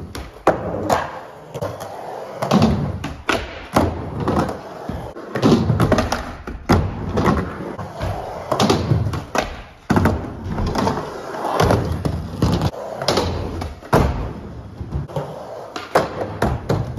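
Skateboards rolling on wooden ramps and a ledge box: a low wheel rumble broken by many sharp clacks and slaps of boards hitting and landing.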